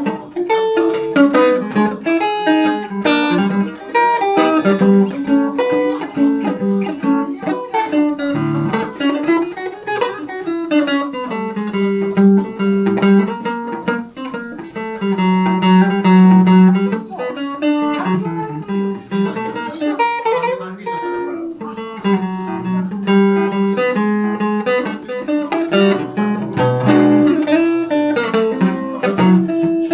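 A Van Zandt Telecaster electric guitar played through a Roland JC-120 amp, picking a blues line with notes bending in pitch.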